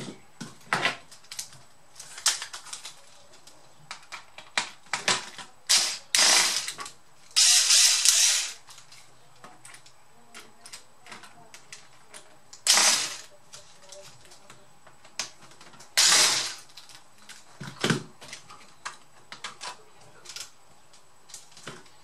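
Clicks, taps and snaps of plastic parts and tools as a laptop's screen panel is taken apart. Four short rasping bursts, the longest about a second, stand out over the scattered clicks.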